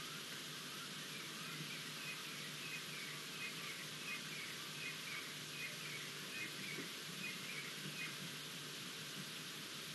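A bird calling in a quick run of short, repeated chirps, about three a second, that stops about eight seconds in, over a steady hiss.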